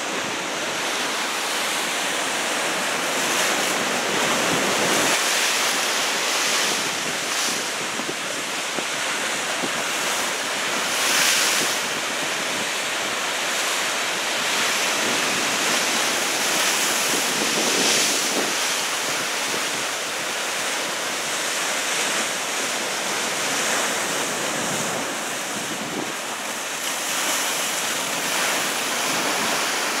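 Heavy typhoon-driven surf breaking and washing in whitewater over rocks below a cliff, a steady rush that swells louder as bigger waves break, with wind buffeting the microphone.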